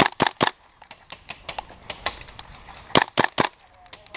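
Gas blowback airsoft rifle (WE M4 GBBR) firing two quick bursts of three shots about three seconds apart, each shot a sharp crack from the gas-driven bolt cycling. Fainter cracks of other airsoft shots come in between.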